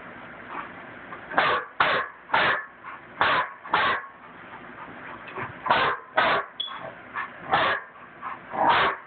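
A large dog barking, about ten short loud barks in quick runs of two or three.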